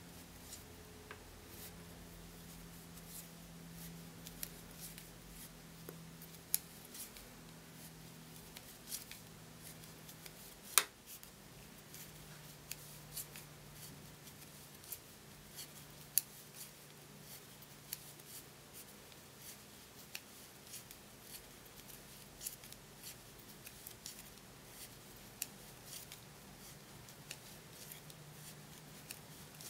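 Wooden knitting needles clicking against each other as stitches are worked: faint, irregular sharp clicks about once or twice a second, one louder near the middle.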